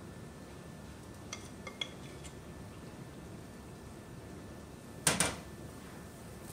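Metal tablespoon clinking against a glass mixing bowl while scooping pancake batter: a few light clinks, then two louder knocks close together about five seconds in.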